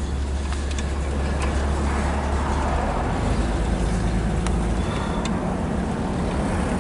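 1966 Ford Mustang's straight-six engine running under way, with road and wind noise, heard from inside the car on a test drive. The engine note changes about halfway through.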